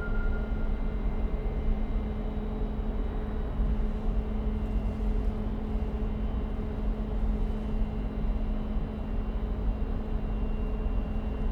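Steady low rumble of an underground rail system, with several steady mechanical hum tones running through it. A higher tone fades out about a second in.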